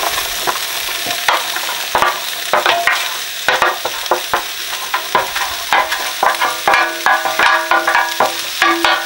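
Sliced leeks and celery sizzling as they are scraped from a stainless steel tray into a hot cast-iron Dutch oven with oil and roasting tomato paste. A wooden spoon scrapes and knocks on the metal tray throughout, and from about halfway in there are short metallic ringing tones as the tray touches the pot.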